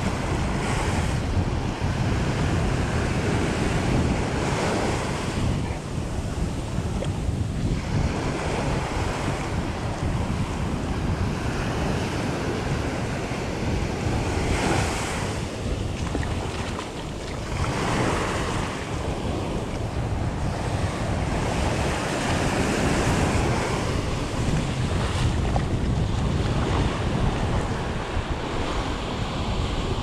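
Small ocean waves breaking and washing up a sandy beach, the hiss of the surf swelling and fading every few seconds. Under it is a steady low rumble of wind on the microphone.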